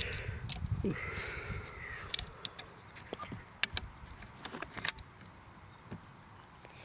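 Scattered light metallic clicks and handling noise as a Savage Model 7H .22 semi-automatic rifle's clip is handled and seated in the bottom of the rifle. The clicks are irregular, a few sharper ones standing out.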